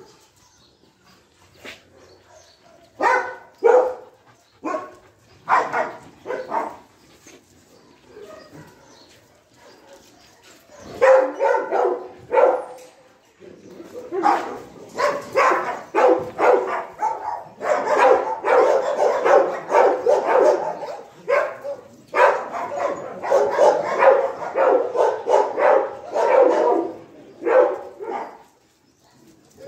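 Several dogs barking: scattered single barks in the first half, then rapid, overlapping barking almost without pause through most of the second half.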